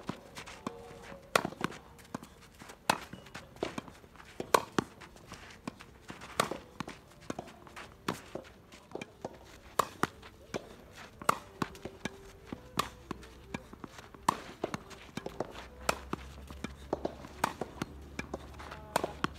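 Tennis ball volley drill: rackets striking the ball back and forth across the net, a sharp pop about every second, with the ball bouncing on the court in between.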